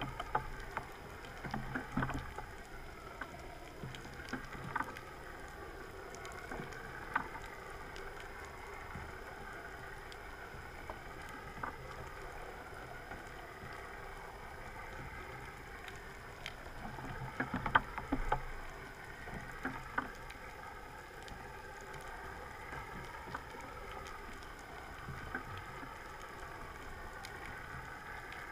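Underwater ambience picked up by the camera: a steady hiss with an on-and-off low hum and slowly wavering tones, broken by scattered sharp clicks. There is a cluster of louder knocks and clicks around two seconds in and again around seventeen to eighteen seconds in.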